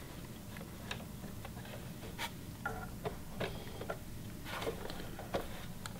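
Singer Heavy Duty sewing machine stitching slowly, its needle mechanism making uneven clicks over a low hum, as a single layer of fabric at the edge fails to feed and is sucked down into the throat plate.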